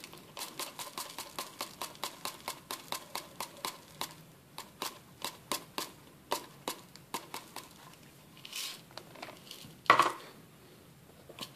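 Granular fertilizer being tipped off a folded sheet of paper into a plastic bottle-neck dispenser, the granules dropping in as a run of small clicks, several a second. A single louder click about ten seconds in.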